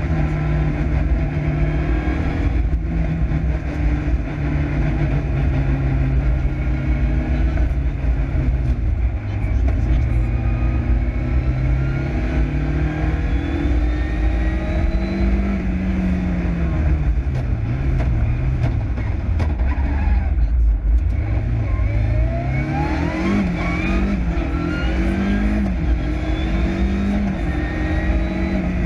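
Lancia Delta Integrale Group A rally car's turbocharged four-cylinder engine heard onboard, pulling hard at high revs on a special stage. About two thirds of the way through the revs fall away as the car slows, then climb again through several quick upshifts.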